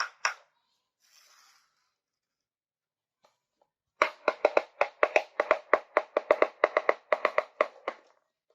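Rapid light clinking of small miniature kitchen pieces struck together, about five clinks a second, each ringing at the same pitch. A short run stops just after the start, and after a pause a longer run starts about four seconds in and stops near the end.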